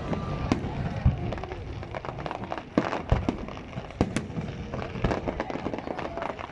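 Fireworks going off: a string of irregular sharp bangs and crackles, with deeper booms about half a second, three and four seconds in, over a steady background hum.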